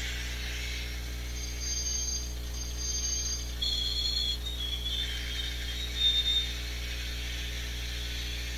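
A 1/80-scale model of a KiRo 80 diesel railcar running along the track: the motor, gears and wheels whir, and its DCC sound decoder plays diesel engine sound. Short high tones come and go through the middle.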